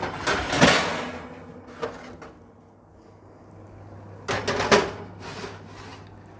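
Oven door, rack and bowls clattering as dishes of nachos are put under the grill: a loud clatter in the first second, a single knock near two seconds, then another clatter at about four and a half seconds.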